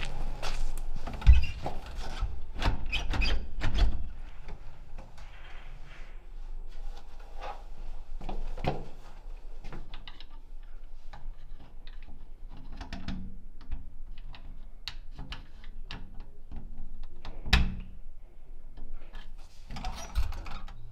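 Several dull, heavy thuds at first, then scattered small clicks and scrapes of bent-wire lock picks worked in a door lock, with one louder knock a little past three-quarters through.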